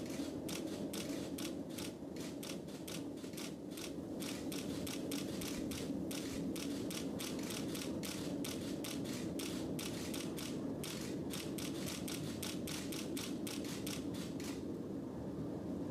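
Ariane 5 ECA rocket climbing under its solid boosters: a steady low rumble with a dense, rapid crackle of several sharp cracks a second. The crackle stops shortly before the end.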